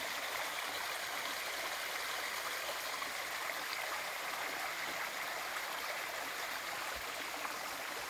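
Stream running steadily: an even, unbroken rush of water.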